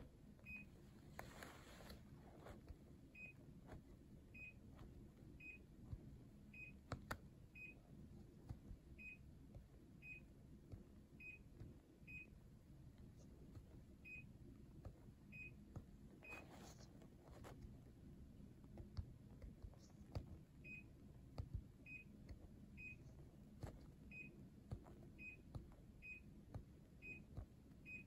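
Short single beeps, one per button press on a Daikin air conditioner remote control, about twenty in runs roughly a second apart with short pauses, all at the same high pitch. Faint clicks and rustles of handling the remote sit among them.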